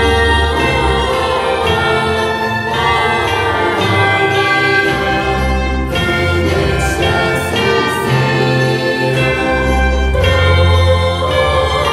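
A choir singing a Christmas carol with bells: the built-in soundtrack of the Lemax Christmas Chimes village church model.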